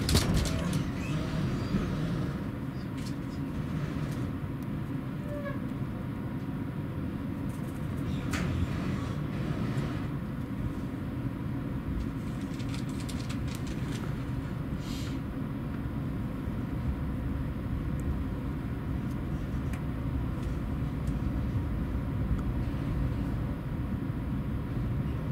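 Steady low rumble inside a passenger coach of a Class 68 diesel-hauled train pulling slowly away from the platform, with a few faint clicks.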